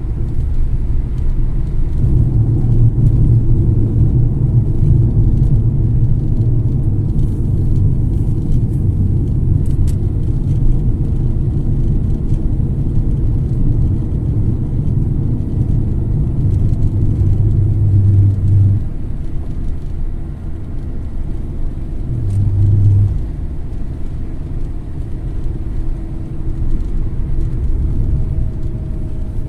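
Road noise inside a car driving on a highway: a steady low rumble of tyres and engine, heavier for the first two-thirds and easing about twenty seconds in, with a brief swell soon after.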